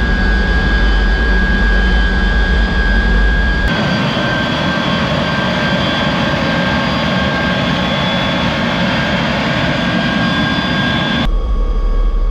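MiG-17 jet engine running steadily at taxi power, a dense rumble with a steady high whine over it. About four seconds in the deep low rumble drops out abruptly, leaving a brighter hiss and whine, and it comes back just as abruptly near the end.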